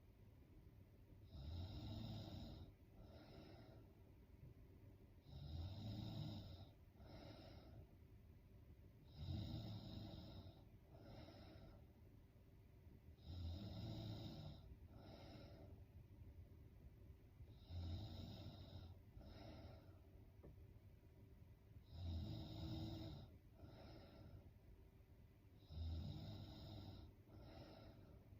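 A woman snoring in her sleep, faint and regular: about one breath every four seconds, each a longer snore followed by a short breath sound.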